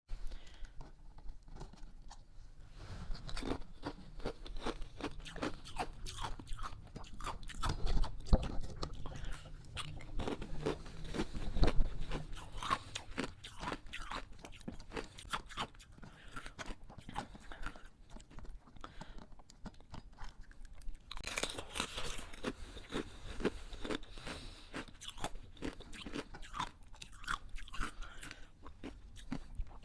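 Hard ice being bitten and chewed close to the microphone: dense, rapid crunching and cracking, with a couple of louder bites about eight and twelve seconds in and a bright burst of crackling just past twenty seconds.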